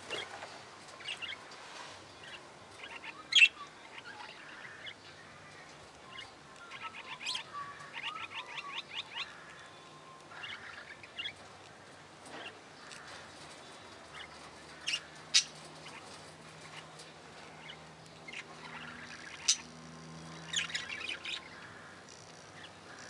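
A flock of budgerigars chattering: many overlapping chirps and warbles, with a quick run of repeated notes about seven seconds in and a few sharp, loud calls standing out, the loudest about three seconds in.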